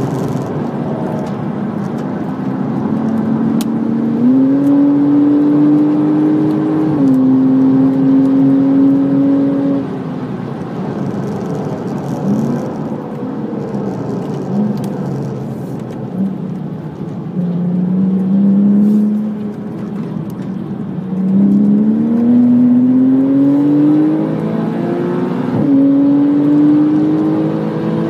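Porsche Cayman S flat-six engine heard inside the car at track speed, with wind and tyre noise. It pulls hard, then falls to a lower, broken note with short brief rises in pitch as the car slows for a chicane. It then revs up steadily again out of the chicane, with a sudden drop in pitch for an upshift a few seconds before the end.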